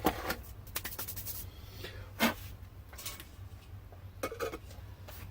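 Handling noise: scattered rustling and light clicks of objects being moved about, with one sharper click a little over two seconds in, over a steady low hum.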